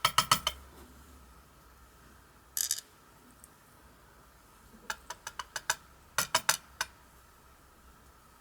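Small metal lock pins clicking and clinking together on a hard surface as they are handled, in short runs of quick clicks: one at the start, two more about halfway through, with a brief scrape in between.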